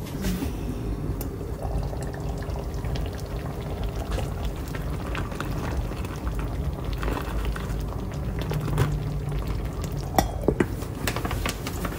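Tomato and milk sauce bubbling at a simmer in a small covered pot, with eggs cooking in it: a steady crackle of many small pops. A sharper click comes about ten seconds in.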